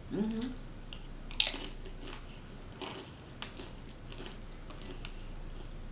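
Close-up eating sounds of a person chewing and biting snack-tray food, with scattered sharp mouth clicks and crunches; the strongest comes about a second and a half in. Near the start there is a short rising hum from the eater.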